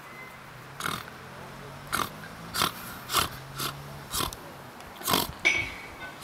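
People snoring together: short noisy snores about every half second to a second, at uneven intervals.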